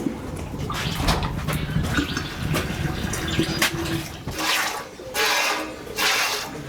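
Water splashing in a few separate short gushes in the second half, after a stretch of low rumble and scattered clicks.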